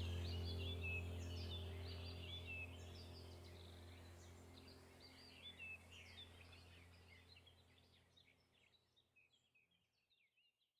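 Birds chirping over a low steady drone, the whole ambience fading out slowly to silence near the end.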